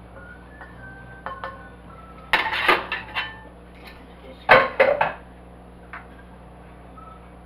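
Metal pot and kitchen utensils clattering while gravy is strained through a mesh strainer: two short bursts of clinks and knocks, about two seconds in and again about four and a half seconds in.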